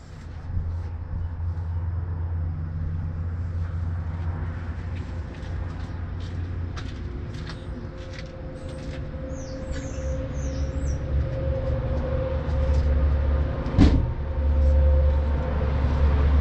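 A steady low mechanical hum that drops slightly in pitch about seven seconds in, with scattered light clicks and one sharper click about fourteen seconds in.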